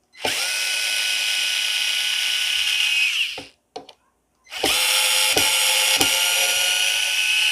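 Worx WX240 4V cordless mini screwdriver driving a 2-inch screw: the small motor whines steadily in two runs of about three seconds each, with a short pause between them and a couple of clicks during the second run.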